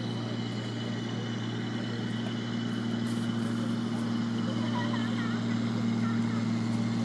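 Engine of an amphibious duck-tour vehicle running steadily as it motors through the water, a low hum that grows gradually louder as it approaches. A few faint high chirps come about two-thirds of the way through.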